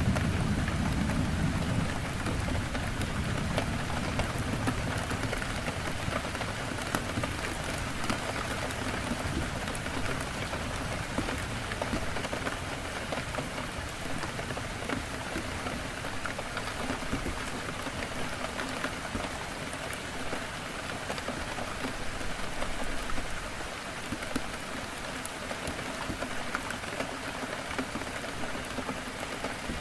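Heavy rain falling steadily on a window, with scattered drops tapping. A low rumble at the start dies away over the first few seconds.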